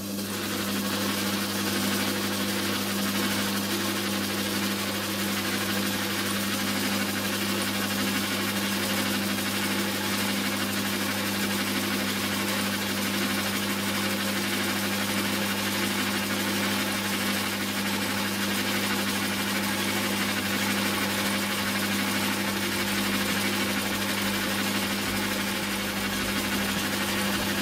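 Small watchmaker's lathe running steadily on its electric motor, with its screw-cutting change gears turning: a steady low hum under a whir of the belt and gear train.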